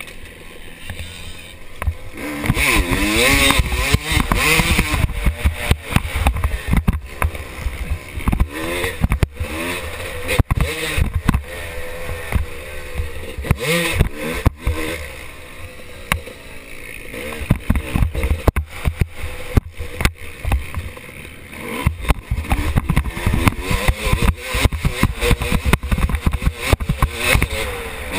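Motocross bike engine revving up and falling back again and again as the rider works through the track, heard through a loosely mounted helmet camera that adds constant knocking and buffeting over the engine.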